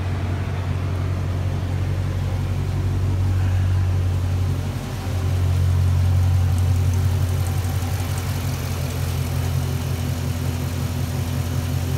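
A 2013 Chrysler 300 SRT8's 392 Hemi V8 idling steadily while warming up to operating temperature, with a brief dip in the sound about five seconds in.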